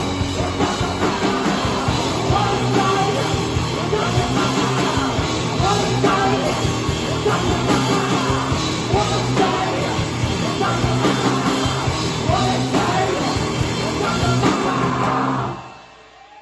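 Live rock band playing loud, with drums, guitars and a singer; the music stops about fifteen seconds in.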